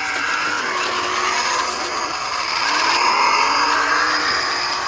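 Electric drive motor and gearbox of a NewBright 1:10 Grave Digger RC monster truck whining as it drives across wood mulch. The pitch rises and falls as the speed changes, and it is loudest about three seconds in.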